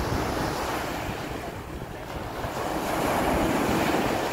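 Small waves breaking and washing up on a sandy shore, swelling to a louder surge about three seconds in, with wind buffeting the microphone.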